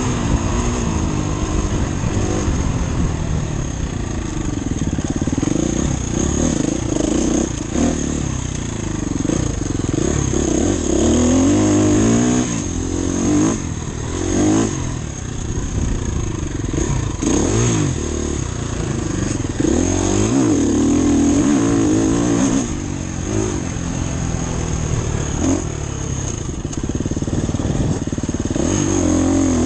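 Off-road motorcycle engine under load while riding, repeatedly revving up and dropping back in rising and falling pitch sweeps as the throttle is worked through the terrain.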